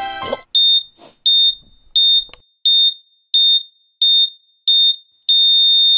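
A patient monitor's high electronic beep sounding seven times, about every 0.7 seconds, then turning into one continuous tone near the end: a flatline.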